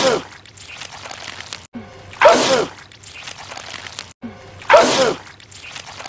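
A man's sneeze, looped. Each repeat starts after a sudden cut with a short rising 'ah' intake, then a loud 'choo'. The tail of one sneeze falls at the very start, and two full sneezes come about two and a quarter and about four and three-quarter seconds in.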